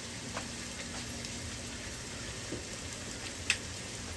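Spice masala frying in oil in an open aluminium pressure cooker: a steady soft sizzle with a light crackle now and then.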